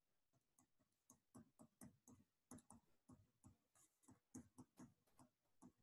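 Faint, irregular ticks and taps of a pen stylus on a tablet screen while handwriting a number.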